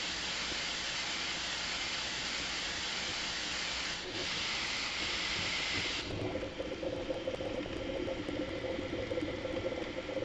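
Bambu Lab A1 3D printer running in sped-up footage, heard as a steady hiss of fans and motors. About six seconds in, where the footage jumps ahead in the print, it changes abruptly to a lower, fluttering whir.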